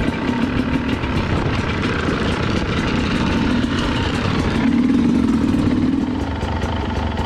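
Dirt bike engine running steadily close by, swelling louder for a second or so about five seconds in, then settling back.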